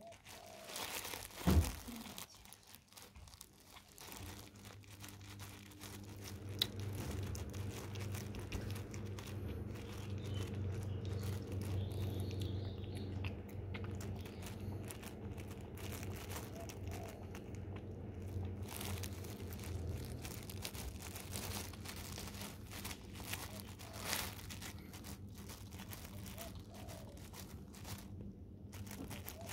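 A tabby cat chewing and crunching food off a plastic bag, the thin plastic crinkling and crackling under its mouth and the hand beside it. A sharp knock about a second and a half in, and a steady low hum through the middle.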